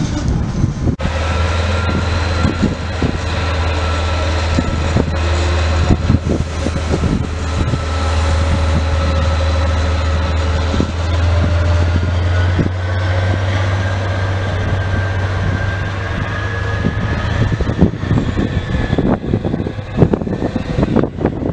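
Diesel shunting locomotive running as it moves slowly along the track: a steady low engine drone with a thin whine above it and scattered knocks. The drone fades out about three quarters of the way in as the locomotive moves away.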